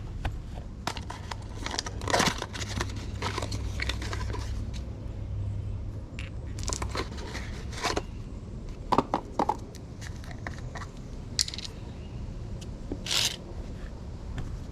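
Scattered scrapes, clicks and light knocks of hands working a two-part marine repair putty and its containers and tools, over a steady low hum.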